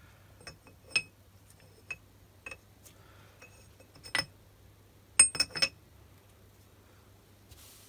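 Light metal-on-metal clinks and taps from a steel graduated disc being fitted onto a BS-0 dividing head: single clinks roughly once a second, a louder one about four seconds in, and a quick run of three a little after five seconds.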